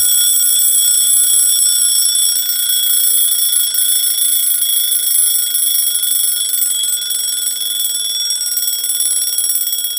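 Elgin folding travel alarm clock's alarm going off: a really loud, high-pitched, rapidly pulsing ring that slowly gets a little quieter.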